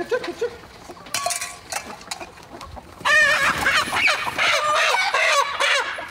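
Chickens clucking, then from about three seconds in a young rooster squawking loudly and without pause as it is grabbed and held by hand.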